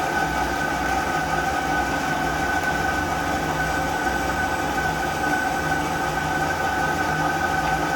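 CNC lathe running a turning operation: a steady machine hum with a constant high whine.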